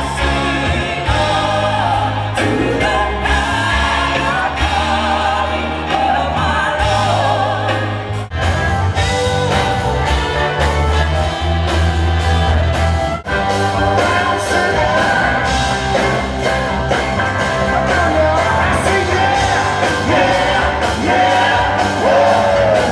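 Band music with singing: a rock-and-soul band with lead and backing vocals over a steady bass. The music breaks off briefly twice, about 8 and 13 seconds in.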